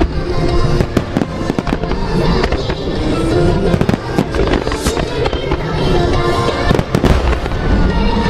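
A fireworks starmine bursting in rapid succession, many bangs and crackles one after another, over music played through loudspeakers.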